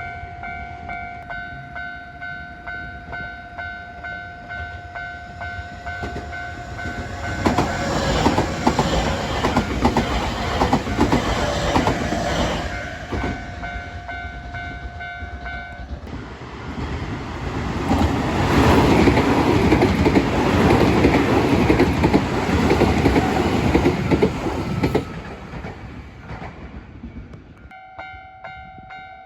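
Level-crossing warning bell ringing with a steady pulsing tone while a Nankai Main Line train passes over the crossing, its wheels clacking over the rail joints. Partway through, the bell cuts out and a second train pass follows with louder wheel and rail noise. Near the end the crossing bell starts ringing again.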